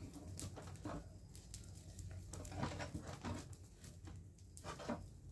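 Faint irregular rustling and crunching: a person handling a sack and dry debris on the ground.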